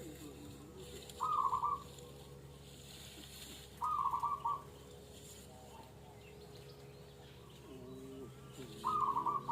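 Zebra doves cooing: three short, stuttering coos, the first about a second in, another near four seconds and the last near the end. Fainter, lower calls come just before the last one, over a steady low hum.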